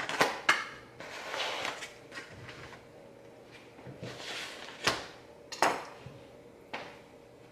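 Black plastic meal-prep containers handled and set down on the kitchen counter: a few sharp clacks, two near the start and two about five seconds in, with softer rustling between.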